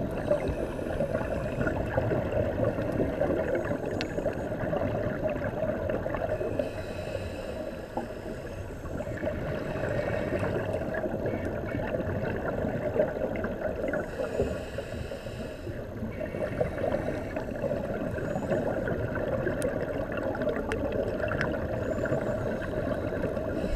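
Steady muffled underwater noise heard through a dive camera's housing, with a diver's scuba regulator breathing: a brief hiss of exhaled bubbles returns about every seven seconds.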